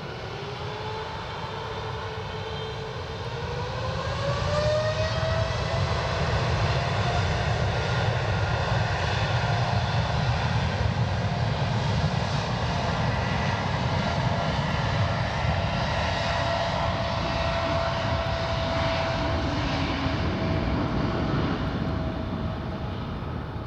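Jet airliner engines: a whine rises in pitch over the first five seconds, then holds steady over a loud rumble, and dies away near the end.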